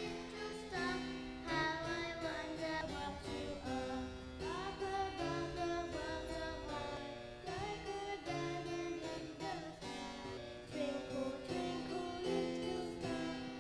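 A young girl singing a solo melody in held, stepping notes, accompanied on the harpsichord.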